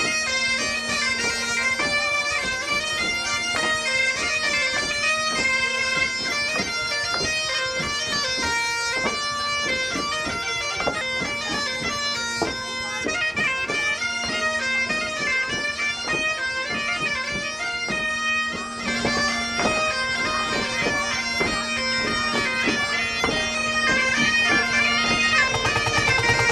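Bagpipes playing a fast, ornamented Breton dance tune over a steady drone. Near the end the music cuts abruptly to a different steady buzzing sound.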